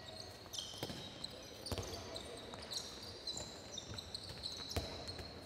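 A handball bouncing and being caught several times on a wooden sports-hall floor, with high-pitched squeaks from sports shoes as players cut across the court.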